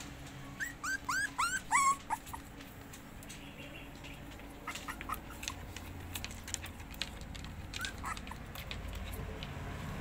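Young puppies whining: a quick string of short, high yelping whines in the first two seconds, then a few fainter whimpers amid light clicking and scratching.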